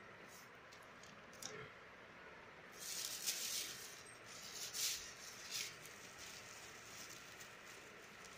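Thin plastic carrier bags crinkling and rustling in several short bursts as they are handled and pulled open, the loudest a few seconds in, with a couple of light clicks before.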